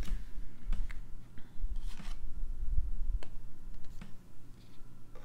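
A few light clicks and taps from trading cards being handled and set down, over a low steady hum.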